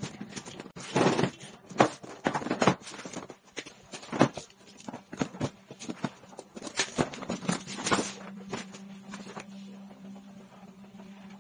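Toy packaging being handled and opened: irregular rustling, scraping and clicking, some sharp and loud, that dies down about eight seconds in, over a faint steady hum.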